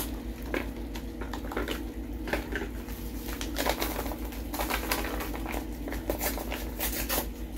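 Seasoning-mix packets being torn open and handled, their paper and plastic crinkling in scattered crackles and clicks, over a steady low hum.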